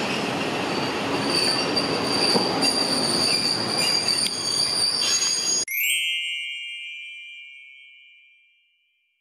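Hiroden 3100-series articulated streetcar running away from the stop, its wheels squealing with a steady high whine over the rumble of the rails. A little over halfway through, the tram sound cuts off abruptly and a single bright chime rings and fades away over about three seconds.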